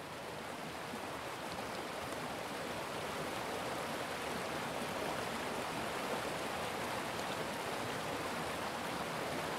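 Steady rushing noise of running water, growing slowly a little louder.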